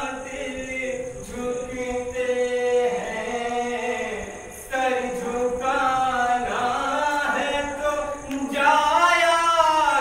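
A man's solo voice chanting a mourning kalam through a microphone in long, held melodic lines that bend up and down in pitch. After a short breath about halfway through, the lines come louder and climb higher near the end.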